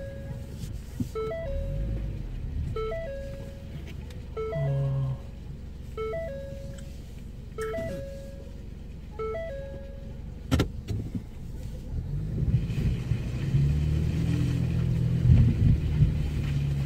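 Car engine and tyres heard from inside the cabin as the car drives across a waterlogged, muddy paddock. The engine works harder and gets louder about two-thirds of the way in, with a few bumps near the end. A short repeating tinkly tune plays over the first part and fades, followed by one sharp click.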